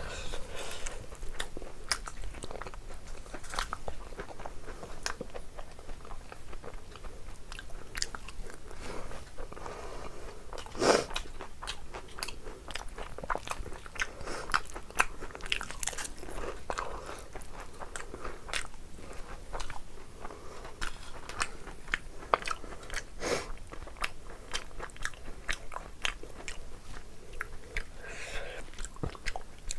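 Close-miked chewing and mouth smacks of a person eating rice and curry by hand, a dense run of sharp wet clicks, with one louder snap about eleven seconds in.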